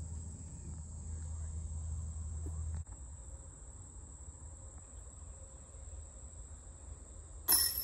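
Insects trilling steadily at a high pitch, typical of crickets in a summer field. A low rumble stops abruptly about three seconds in, and a brief sharp clatter comes near the end.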